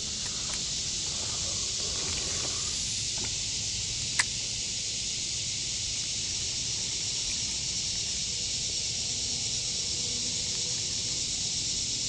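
Steady, shrill insect chorus, an even high hiss that swells slightly over the first couple of seconds and then holds. One sharp click about four seconds in.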